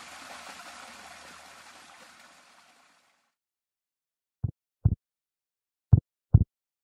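Rushing water noise fading out over the first two and a half seconds. After a short silence come two pairs of short, low thumps, the second pair about a second and a half after the first.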